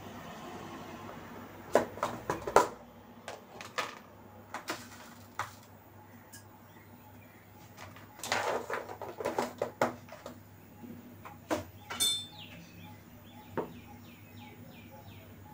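Kitchen utensils clattering in bursts of clinks and knocks: a ladle knocking and scraping in a pot of kadhi, with a plastic box and a plate being handled. A brief ring about twelve seconds in, followed by a short run of faint chirps.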